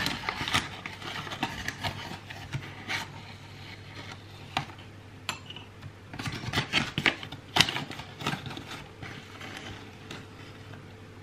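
A cup being scooped into flour to measure it out: scattered light knocks and scrapes, busiest near the start and again about six to eight seconds in.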